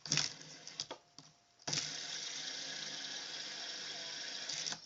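Clicks from a light-up fidget spinner being handled, then the spinner's bearing whirring steadily for about three seconds before stopping abruptly.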